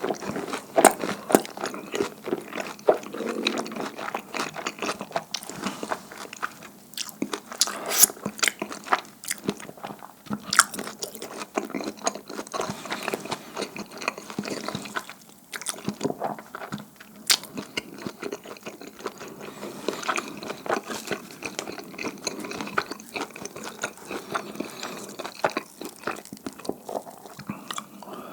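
Close-miked chewing and biting of sticky, chewy dumpling hotteok (pan-fried dumpling-filled pancakes), with many short clicks throughout.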